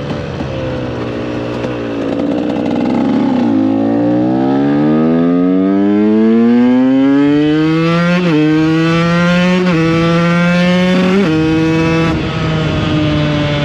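Supermoto motorcycle engine heard from on board. The revs ease off for the first few seconds, then rise steadily under acceleration for about four seconds and hold high. Brief dips in pitch come twice, and the pitch settles a little lower near the end.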